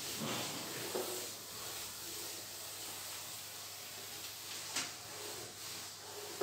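Whiteboard eraser rubbing back and forth over a whiteboard, wiping it clean, with a couple of light knocks.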